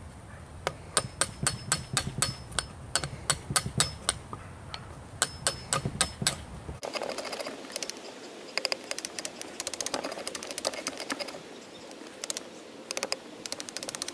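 Hammer striking a wood chisel in quick taps, about three a second, chipping the waste out of a dado in a pressure-treated lumber post. About seven seconds in, this gives way to lighter, denser ticks and scraping of the chisel paring the wood.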